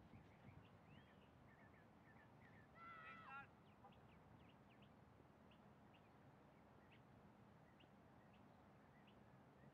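Near silence of an open field, with faint scattered bird chirps and one brief louder call about three seconds in.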